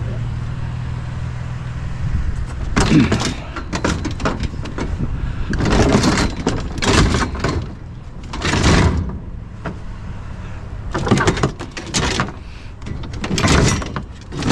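A plastic-bodied Greenworks electric pressure washer being set down and shoved into a pickup bed on top of metal wire shelving, giving several separate bursts of clattering and scraping. A steady low hum lies under the first few seconds and stops about three seconds in.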